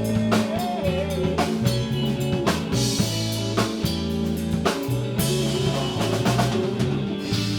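A rock band playing an instrumental stretch between sung lines: a drum kit keeping a steady beat, with rimshots on the snare, over long held bass notes.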